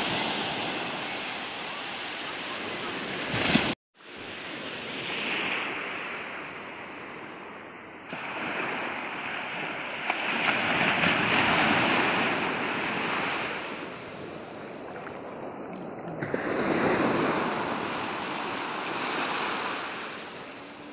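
Small waves breaking and washing up over a sandy shore: a steady hiss of surf that swells and eases every few seconds.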